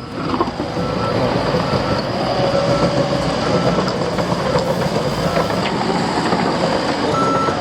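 Heavy construction machinery running loud and steady, a diesel engine with rattling, clanking mechanical noise, while a reversing alarm beeps on and off.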